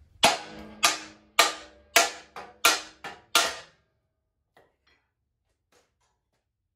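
Hammer blows on the steel frame of a John Deere 185 lawn tractor, seven strikes at about two a second, each ringing like struck metal, knocking loose a part still bolted to the frame. A few faint taps follow.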